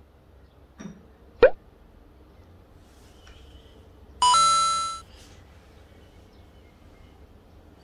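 Water drops plopping from the valve of a cold-brew coffee drip tower: a faint one just under a second in and a sharper one with a quick rising pitch about a second and a half in. About four seconds in comes a short, bright chime, the loudest sound, fading within a second.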